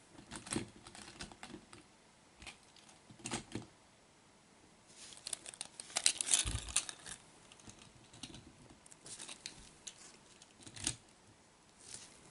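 Small clicks and clacks of plastic and diecast metal as a Hot Wheels Monster Jam toy truck is handled and set onto a stack of other toy trucks. A dense clatter comes about halfway through, with one soft thump.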